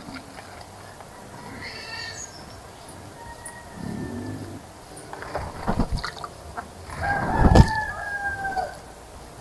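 A rooster crows once near the end, a long drawn-out call that falls slightly as it ends. A few sharp knocks come shortly before it, with the loudest right as the crow begins.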